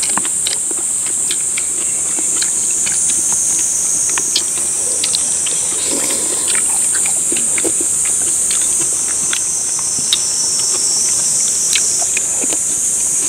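A steady high-pitched insect chorus, with scattered short clicks and clinks of spoons and chopsticks against stainless steel bowls as people eat.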